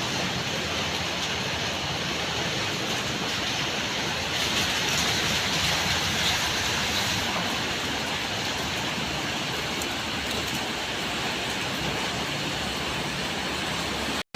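Steady rain falling, an even hiss that holds at one level without let-up.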